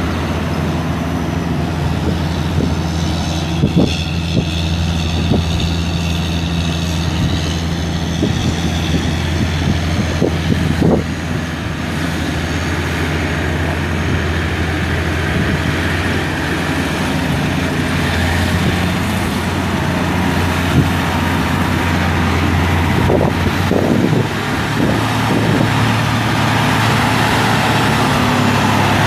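John Deere 9520 tractor's six-cylinder diesel engine running steadily, with a low hum; its note shifts near the end, and a few light knocks sound over it.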